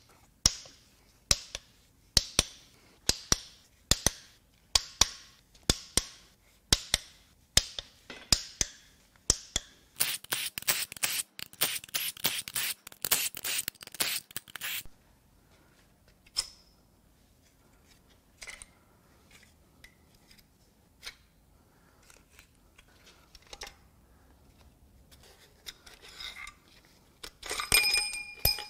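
Connecting-rod cap bolts on a Ford 2.7 EcoBoost V6 being cracked loose with a breaker bar: a sharp crack about once a second, about a dozen times. Then about five seconds of rapid ratchet clicking as the bolts are run out, followed by light metal handling and, near the end, a ringing metal clink.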